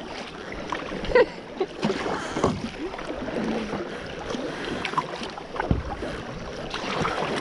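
Paddle strokes and water washing and dripping against a plastic sit-on-top kayak hull, with a few short splashes.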